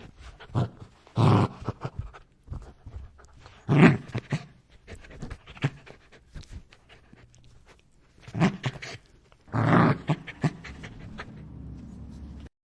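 A dog snarling and growling in irregular bursts, with breathy panting between them; the loudest snarls come about a second in, near four seconds and near ten seconds, and the track cuts off just before the end.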